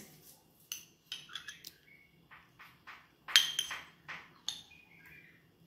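A spoon clicking and scraping against a glass baking dish as soft low-fat cheese is spooned in: a few separate light knocks, the loudest about three and a half seconds in.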